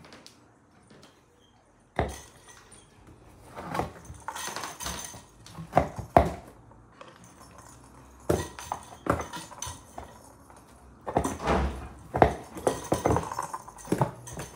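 A cat scrabbling inside a cardboard box, with irregular knocks and scratches of its paws on the cardboard. They start suddenly about two seconds in and come in clusters, with short pauses between them.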